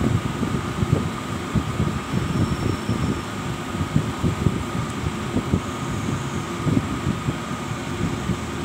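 Steady fan-like machine hum with a faint constant whine, under irregular low rumbling and thumps.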